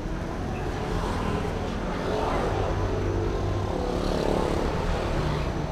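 A motor vehicle engine running close by over street noise, growing louder about two seconds in.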